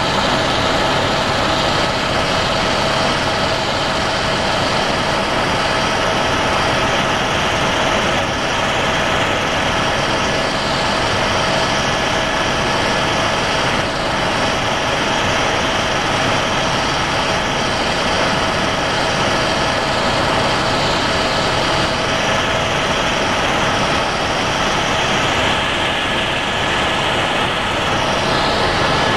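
Helicopter in flight heard from inside the cabin: a loud, steady drone of engine and rotor with a constant whine running over it.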